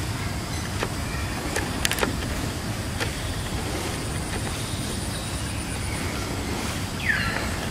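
Outdoor ambience: a steady low rumble with a few sharp clicks in the first three seconds, and a short call falling in pitch near the end.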